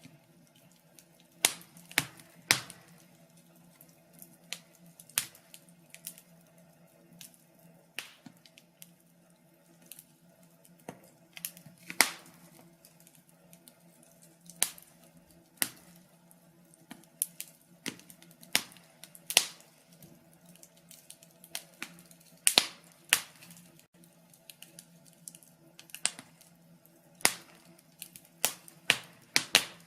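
Wood fire crackling: irregular sharp pops and snaps, some in quick clusters, over a faint steady low hum.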